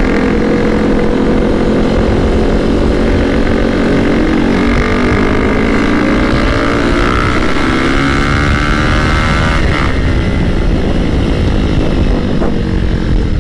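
Sport motorcycle engine under way, heard over wind rush on the rider's microphone. About four seconds in, the engine pulls up through the revs with a climbing whine, then drops back near the ten-second mark as if shifting up.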